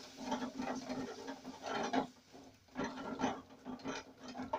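Wooden spoon stirring and scraping a thick beef and tomato-paste mixture in an aluminium pot, in irregular strokes with small knocks against the pot. A steady low hum runs underneath.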